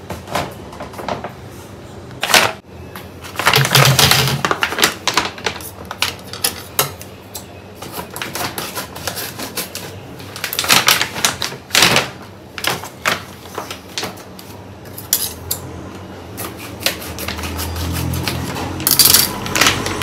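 Kitchen work: a run of irregular sharp clicks and knocks from utensils being handled, with a few louder clusters. A low rumble builds in near the end.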